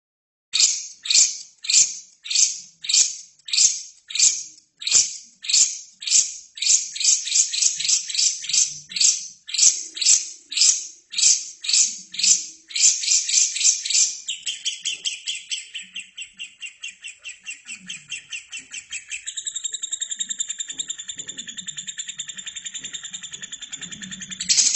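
Albino lovebird calling: a run of sharp, high, downward-sweeping chirps about two a second that speed up, then break into a long, fast, continuous trill a little past halfway through.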